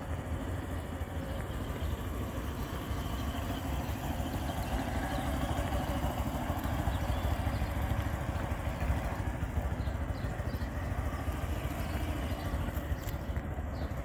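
Small street motorcycle's engine running steadily at idle as the bike creeps along slowly on the clutch without throttle, a little louder in the middle as it passes nearer.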